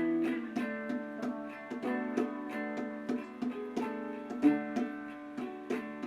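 Background music: a plucked string instrument, ukulele or guitar, playing a light tune of quick picked notes.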